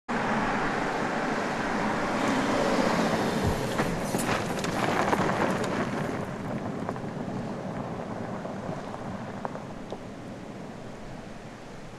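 BMW X3 SUV driving onto loose gravel, its tyres crunching and spraying stones, with scattered clicks of stones a few seconds in. The sound is loudest near the middle of the first half, then fades as the car pulls away.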